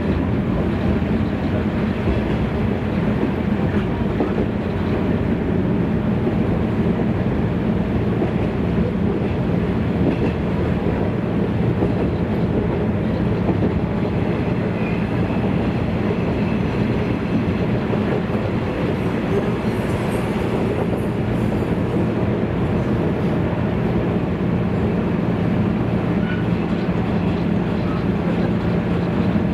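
Running sound inside a JNR 113 series electric multiple unit at speed: a steady rumble of wheels on rail with a low, even hum underneath.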